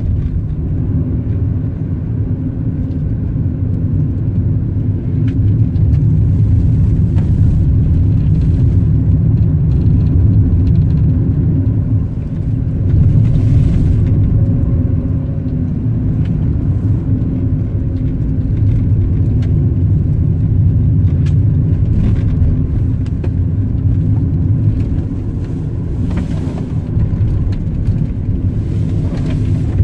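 A car driving along a winding road: a steady low engine and road rumble, with small ticks and knocks here and there.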